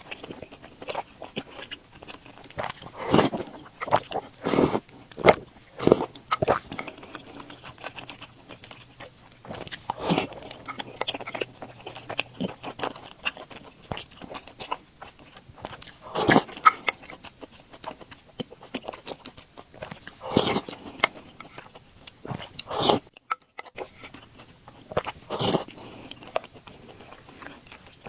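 Close-miked eating of soft glutinous rice balls (tangyuan) in sweet soup: wet chewing and mouth smacks. Louder, sharper mouth sounds stand out every few seconds.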